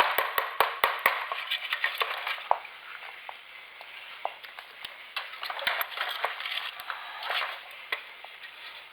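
Rapid clicks and knocks of hard parts being handled, dense for the first two seconds or so, then thinning out to scattered single clicks.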